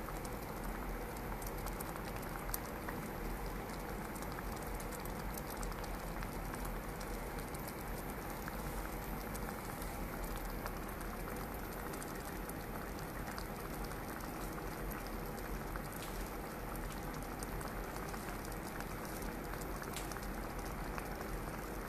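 Semiya kesari bubbling in a nonstick kadai: a steady crackle of small pops as the vermicelli cooks down in melted sugar syrup and thickens.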